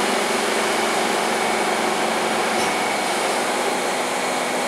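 Steady hum and rush of air inside a Siemens C651 MRT train car, from its air-conditioning and onboard equipment running, with a low steady drone underneath.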